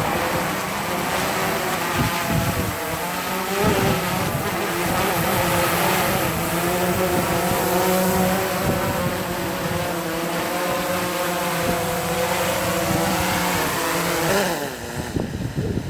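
DJI Phantom 3 Advanced quadcopter's motors and propellers buzzing steadily in flight, several pitches shifting slightly together. Near the end the pitches fall and the motors spin down.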